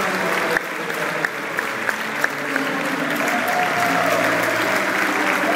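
Large crowd applauding, with sharp claps falling into a steady rhythm of about three a second for the first couple of seconds before blending into general clapping.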